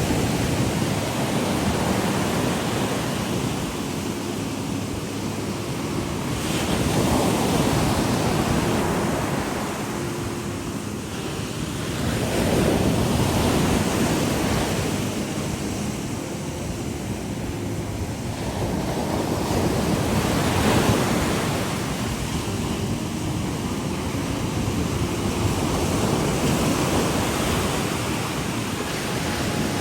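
Waves washing in, a continuous rushing that swells and eases every six to eight seconds.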